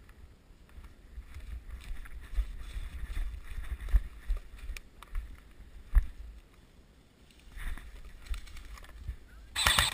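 Muffled movement and handling noise with a few sharp clicks, then near the end a short burst of fire from an HK416 airsoft rifle.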